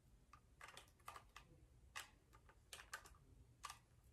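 Faint, irregular small plastic clicks and taps from a battery being fitted into the battery compartment of a Canon G7X Mark II compact camera.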